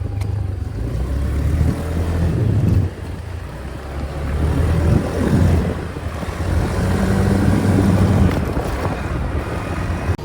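Motorbike engine running on the move, its note rising and falling as the revs change, with road noise.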